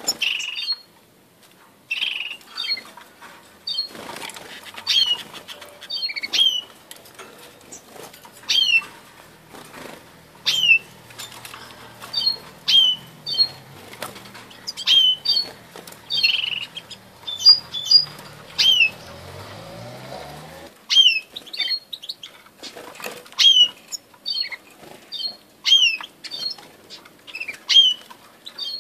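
Red siskins calling over and over with short, sharp notes that slide down in pitch, about every second or two, mixed with brief chips and quick flutters of wings.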